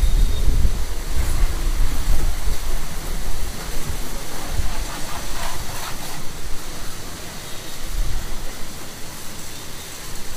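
High-pressure water spray hissing steadily against a car's body and wheels during a hand wash, over a low rumble that is loudest in the first second or two.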